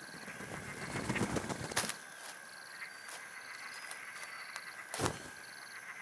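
Faint outdoor nature ambience: short high chirps repeating every half second or so over a steady high hum, with a soft rustle about a second in and a sharp click near the end.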